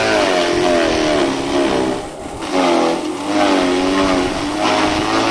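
Electric forage chopper running while dry stalks are fed into its hopper. Its whine wavers in pitch as the load changes, and it drops briefly a little after two seconds in.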